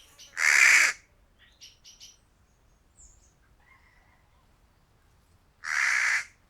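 A crow cawing twice: two loud, harsh caws about five seconds apart. A small bird chirps quickly three or four times just after the first caw.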